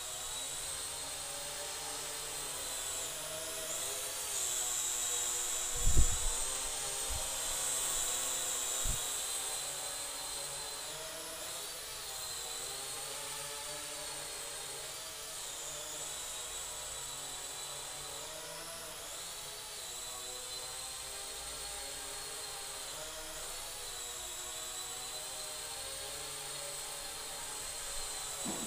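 Small electric motors and propellers of a Falcon VTOL RC plane in hovering flight, a high whine that wavers up and down in pitch as the throttle changes. A few low thumps come about six to nine seconds in, the loudest about six seconds in.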